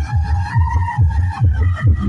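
Loud electronic dance music played through a paredão car sound system, with a heavy bass kick that drops in pitch about four times a second under a synth melody.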